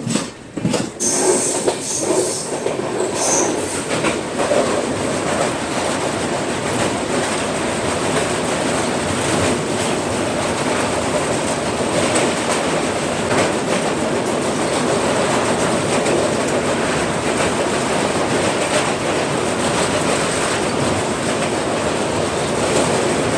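Passenger train running over a steel truss bridge, heard from an open coach door: a loud, steady rumble and clatter of wheels on the rails, with a few sharp clacks in the first three seconds.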